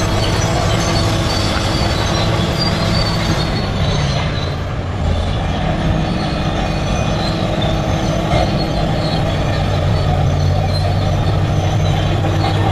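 Large crawler bulldozer working, its diesel engine running steadily under load with high metallic squealing from the tracks. The sound eases briefly about four seconds in, then picks back up.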